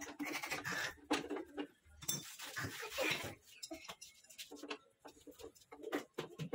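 Irregular metal clicks and clinks of pliers and a wrench working on the steel front fork and handlebar of a child's tricycle.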